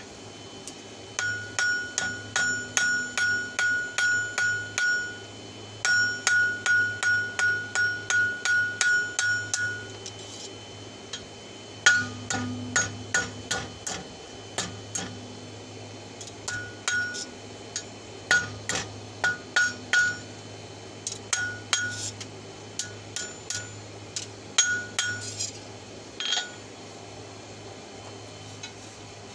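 Hand hammer striking red-hot wrench steel on an anvil, each blow ringing. Two fast runs of about three blows a second come first, then slower, irregular blows that stop a few seconds before the end.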